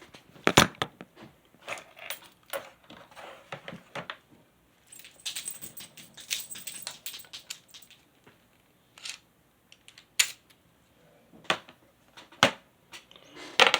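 Clicks and metallic rattles of an adjustable padlock and its keys being handled and locked back. Sharp separate clicks come all through, with a run of jingling in the middle.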